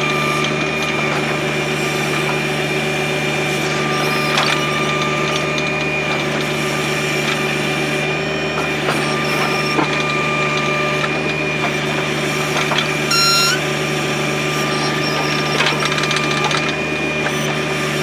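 John Deere 1025R's three-cylinder diesel running steadily under load while its 260B backhoe curls the bucket through hard ground, with a steady high whine over the engine note. A brief high squeal sounds about two-thirds of the way through.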